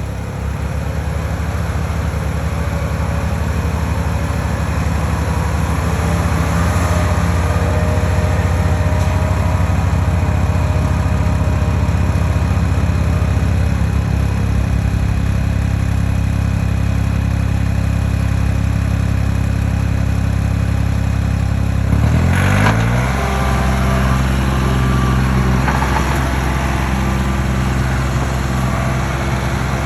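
Engine of heavy stump-removal machinery running steadily, then revving up sharply about 22 seconds in and holding at the higher speed.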